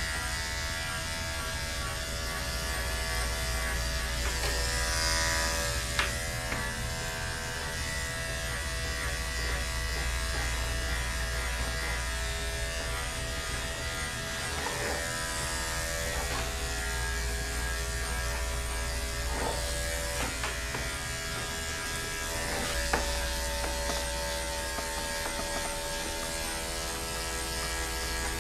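Andis electric dog clipper running with a steady buzz as it shaves down a dog's coat. Two sharp ticks cut through, one about six seconds in and one about five seconds before the end.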